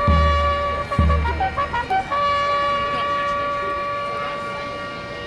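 Valveless bugle playing a few short notes, then one long held note that slowly fades. Two deep drum strokes land at the start and about a second in.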